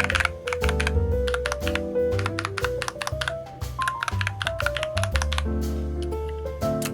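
Typing on a NuPhy Halo96 mechanical keyboard with Baby Kangaroo switches: a rapid run of key clacks, several a second, over background music.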